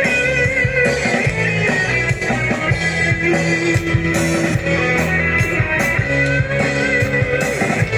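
A band playing instrumental praise-and-worship music at a sound check: held chords over a bass line, with guitar and a steady beat.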